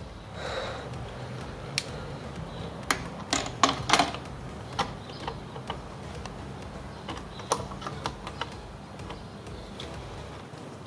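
Pliers and a hose clamp clicking and knocking as a hose is worked loose in a car's engine bay: scattered sharp clicks, with a quick run of the loudest ones about three to four seconds in.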